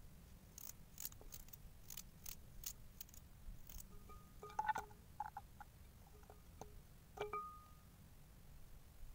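Small knife cutting through raw carrot held in the hand: a quick series of crisp clicks and snaps during the first few seconds, then a few short ringing clinks around the middle and once more near the end.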